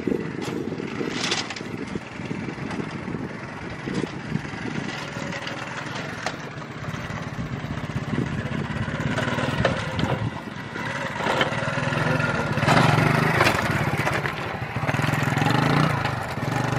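An engine running steadily with scattered clatter and knocks, growing louder in the second half.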